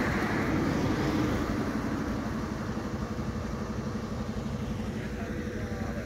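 An engine idling steadily, with an even, fast low throb and a faint steady hum above it. A wider rush of noise fades away over the first second or two.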